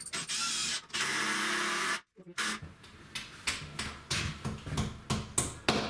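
Power drill driving a screw into timber for about two seconds, then stopping abruptly, followed by a run of irregular knocks and clicks.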